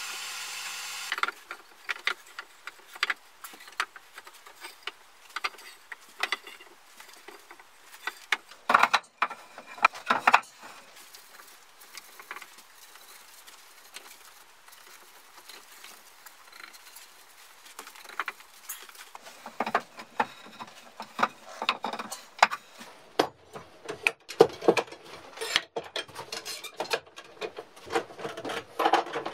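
Handling sounds from a board glue-up: scattered clicks and knocks of birch boards and metal pipe clamps being moved and set, louder around the middle and growing denser near the end. A brief steady hum cuts off about a second in.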